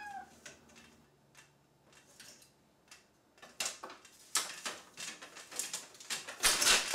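A cat pawing at window blinds, the slats rattling and clicking unevenly, sparse at first, then quicker and louder over the last few seconds and loudest just before the end. A short meow trails off at the very start.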